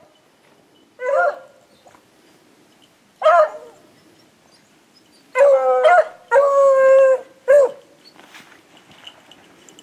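Beagles baying on a snowshoe hare's trail: a short bay about a second in, another a couple of seconds later, then three close together, the middle two long and drawn out.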